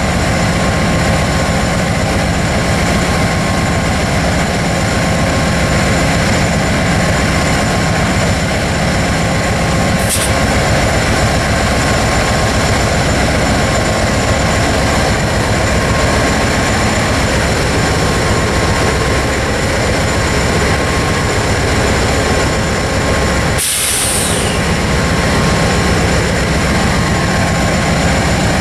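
A train passing at close range: a loud, steady rolling noise from the cars with a constant hum under it, briefly broken twice.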